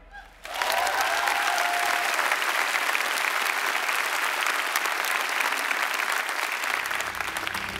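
Congregation applauding. It breaks out suddenly about half a second in, keeps a steady level, and eases slightly near the end.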